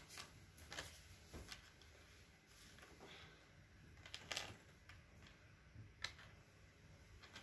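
Faint light clicks and taps as small hard pretzels are set down one by one into a bamboo serving tray, the clearest about four and six seconds in.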